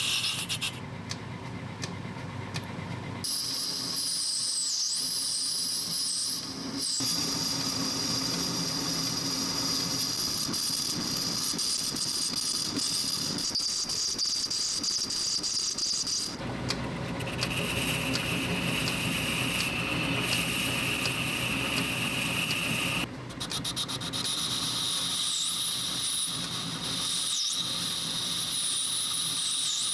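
A power tool working a brass fitting for a screwdriver handle, with a steady high-pitched squeal. The sound changes abruptly a few times as the clips cut.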